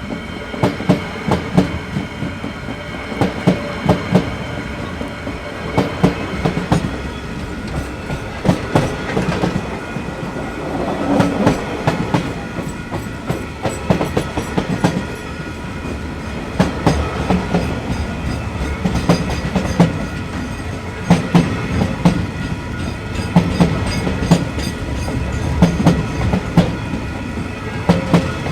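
Freight train wagons rolling past, their wheels clicking over rail joints in regular groups over a steady rumble.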